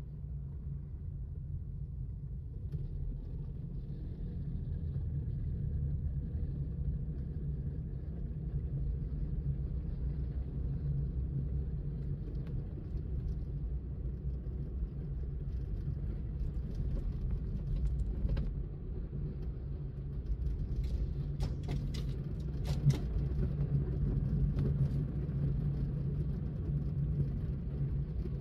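Car being driven: a steady low engine and road-noise rumble, with a few sharp clicks or knocks about three quarters of the way through.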